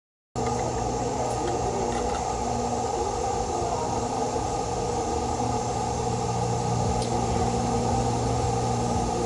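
Small engine of a string trimmer (weed whacker) powering a tiller attachment, running steadily at a constant speed.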